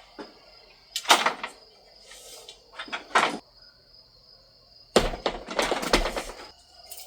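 A ladder being fetched and handled: a few separate knocks and scrapes, then a longer rattling clatter about five seconds in.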